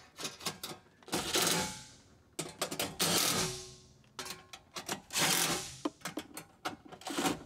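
Cordless DeWalt driver with a socket on an extension running nuts down onto the metal hybrid battery cover: three bursts of about a second each, with clicks and rattles of the socket and metal between.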